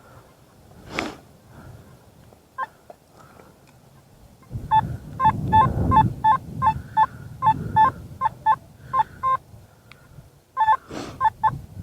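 Metal detector beeping in short, even tones, about two to three a second, starting about five seconds in, pausing and starting again near the end, as the coil passes over a deep buried target. Wind rumbles on the microphone under the first beeps, with a brief gust about a second in.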